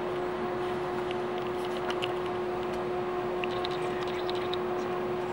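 Airbus A321neo cabin noise at a window seat over the wing during taxi: the engines at idle give a steady hum with one constant tone and fainter tones above it. Faint light clicks and rattles of cabin fittings come over it.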